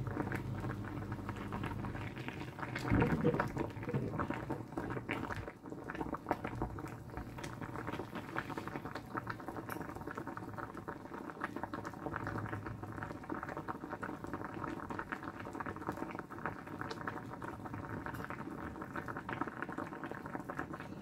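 Pot of salted water at a full boil, bubbling and popping steadily around pieces of peeled breadfruit, with a brief louder sound about three seconds in.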